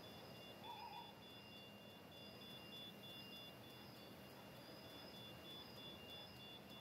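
Faint hiss with thin, high-pitched electronic tones, one of them pulsing on and off in a rapid, even rhythm, and a brief chirp about a second in.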